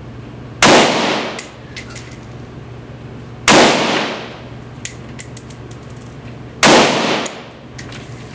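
Three single shots from an MSAR STG-556 5.56 mm bullpup rifle, about three seconds apart, each echoing off the walls of an indoor range and followed by a few lighter clinks. This is slow, aimed fire.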